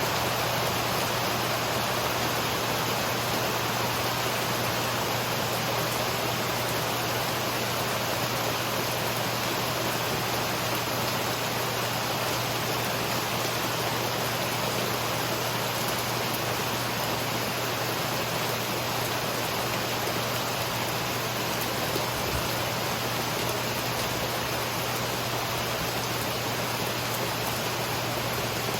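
Steady rain falling during a summer thunderstorm, an even, unbroken hiss.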